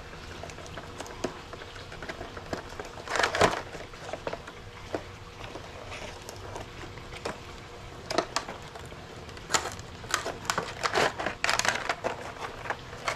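A cardboard box being handled and opened: scattered rustles, scrapes and crackles of the packaging. There is a louder crackle about three seconds in and a busier stretch of handling near the end.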